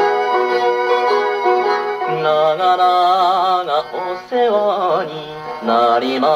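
A 1957 78 rpm record of a Japanese popular song plays through an HMV Model 130 record player during an instrumental passage before the vocal. Sustained chords give way, about two seconds in, to a melody played with wide vibrato over a bass line.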